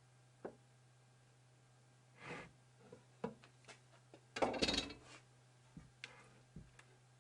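Scattered small knocks and clicks of hand work with wood and tools, with a louder brief scraping rub about halfway through, over a steady low hum.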